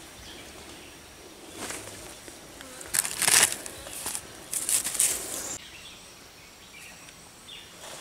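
Plastic bag rustling and crinkling in several short bursts, the loudest about three seconds in, stopping abruptly a little past halfway.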